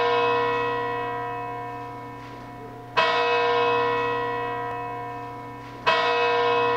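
A single church bell tolling slowly: two strokes about three seconds apart, each ringing out and fading gradually while the previous stroke is still dying away.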